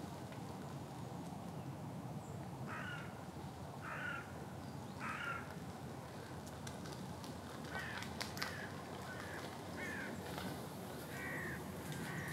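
Bird calling outdoors: three calls about a second apart, then a quicker series of shorter calls in the second half, over a steady low background noise.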